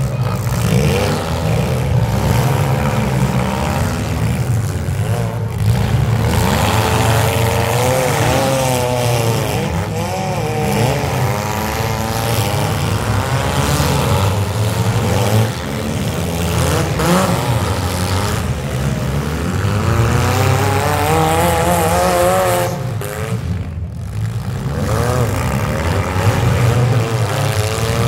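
Engines of several demolition derby cars running and revving at once, their pitches rising and falling over one another above a dense low rumble.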